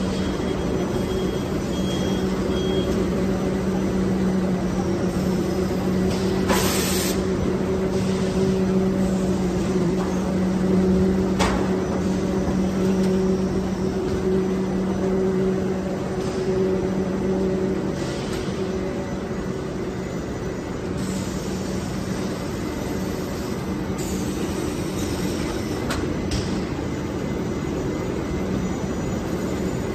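Steady drone of running factory machinery on a rock wool slab production and packing line: motors and conveyors with a strong steady hum that weakens about eighteen seconds in. A short hiss about seven seconds in, a sharp click a few seconds later, and a few fainter hisses near the end.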